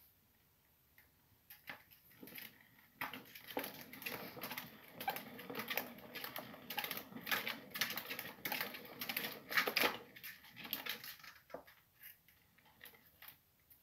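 Plastic exercise wheel spinning with a sugar glider running in it, clattering and ticking as a dense run of light clicks from about three seconds in until about eleven seconds, with scattered clicks before and after.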